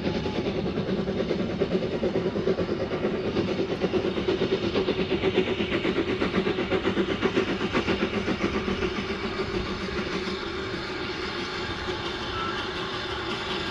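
Narrow-gauge train running past with a quick rhythmic rattle of wheels and wagons, building up and then fading in the last few seconds.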